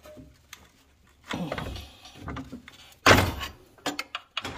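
Metal knocks from a pry bar levering an engine on its mount brackets: a scraping shift about a second in, one heavy clunk about three seconds in, then a few light clicks.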